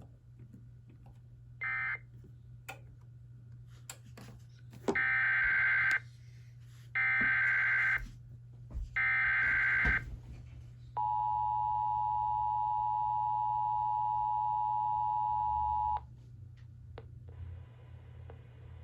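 Emergency Alert System SAME header: three loud one-second bursts of warbling digital data, a second apart. They are followed by the two-tone 853/960 Hz attention signal, held steady for about five seconds, marking the start of a severe thunderstorm warning broadcast. A brief data burst sounds about two seconds in, over a low steady hum.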